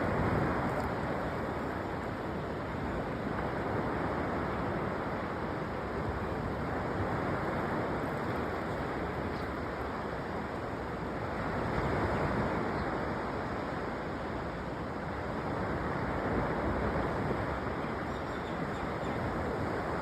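Sea surf washing onto a sandy beach, a steady rushing that swells and eases about every four seconds, with some wind.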